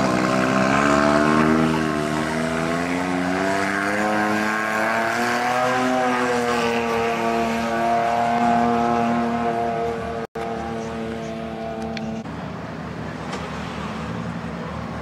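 A rally vehicle's engine running hard, its pitch wavering up, peaking, then holding steady before it cuts off about twelve seconds in.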